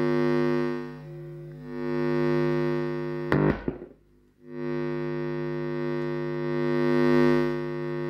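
Mains hum at 50 Hz coming out of the Marantz CRS-8000 radio-cassette's speakers. The field of a nearby Soviet 220-to-12 V power transformer is inducing it into the amplifier. It is a loud, rich buzz that swells and dips as the transformer is moved, cuts out with a crackle about three seconds in, and comes back steady about a second later.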